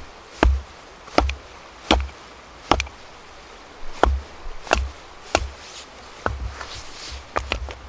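Chopping: a blade strikes wood about ten times at an even pace, roughly one stroke every 0.7 seconds, each a sharp knock with a dull thud beneath it.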